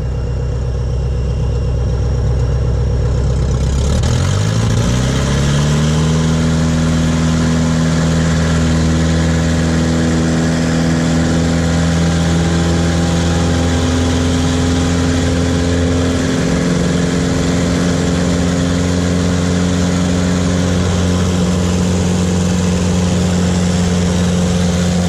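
Pitts S-1S aerobatic biplane's engine and propeller at low power, then throttled up about four seconds in, the pitch rising quickly to full takeoff power. It then holds a loud, steady drone with a strong rush of air through the takeoff roll and climb-out.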